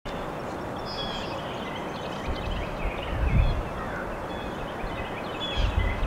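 Outdoor ambience of a steady hiss with many short, high chirps and calls from small birds, and low rumbles about two to three seconds in and again near the end.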